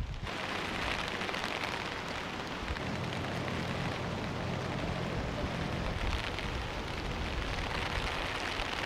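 Steady rain falling on wet pavement and rooftops, an even hiss, with a faint low hum underneath from about three seconds in.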